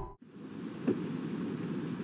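Steady background hiss and ambient noise from a doorbell camera's microphone, with one faint tap about a second in.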